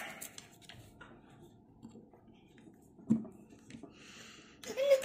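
Quiet knocks and handling of a hammer and drill on a plywood board as a screw is set for driving, with one sharp knock about three seconds in. A short whine rises and falls near the end.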